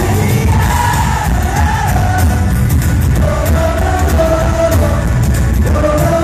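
A rock band playing loudly through a venue's PA, a male lead voice singing over guitar and a steady drum beat, heard from within the audience.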